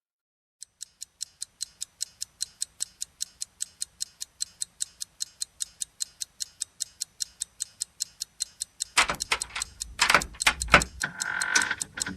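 Clock ticking, evenly at about five ticks a second, as the start of a song's intro. About nine seconds in, a few louder knocks come in over it, followed by a short ringing tone near the end.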